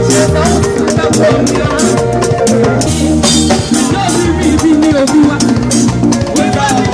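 Loud live band music, with a drum kit keeping a steady beat over bass and other instruments.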